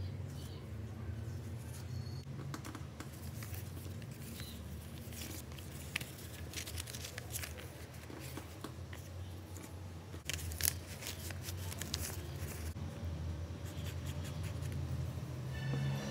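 Paper being handled: cards and a kraft paper bag rustling and crinkling under gloved hands, with a few sharp clicks, over a steady low hum.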